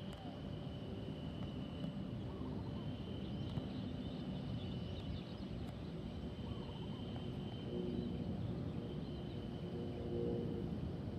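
Distant jet rumble from an AirAsia X wide-body airliner climbing away after takeoff, a steady low roar with a faint drone that grows in the second half. A steady high-pitched buzz runs over it, breaking off briefly twice.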